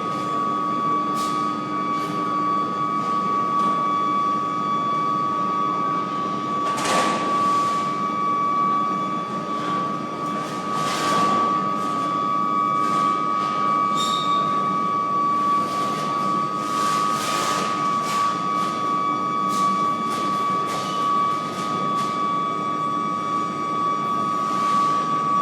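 Coreless induction furnace melting aluminium scrap: a steady, high-pitched whine from the coil and its power supply over a constant noisy hum. The noise swells up briefly several times.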